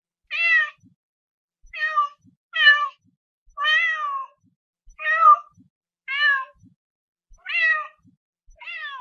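Domestic cat meowing repeatedly: eight short meows, about one a second, each falling in pitch at its end.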